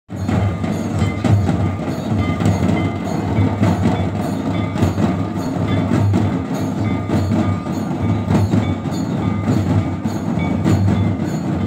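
Folk percussion music accompanying a circle dance: a steady stream of rapid drum and knock-like strikes, with short ringing tones over them.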